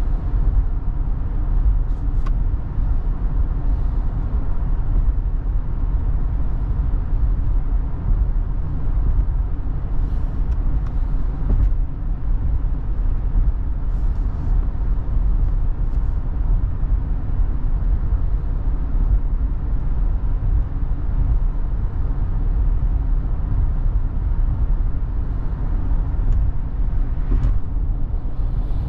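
Steady road and tyre noise inside a moving electric car's cabin, a low rumble with no engine note, with a few faint ticks scattered through it.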